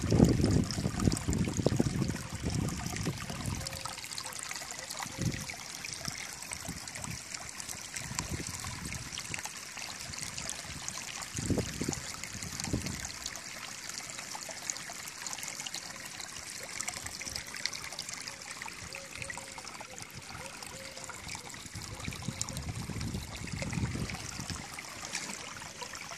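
Shallow water trickling and splashing over rocks in a steady flow, with a few louder low rushes near the start, about halfway through and near the end.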